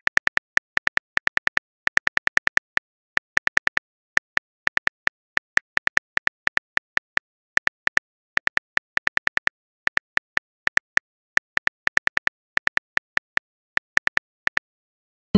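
Phone keyboard typing sound effect: rapid, irregular clicks in short runs with brief gaps, each click a small high tick.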